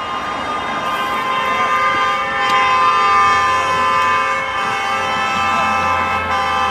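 Car horns held down in long, continuous blasts as cars pass, several horns of different pitch sounding together.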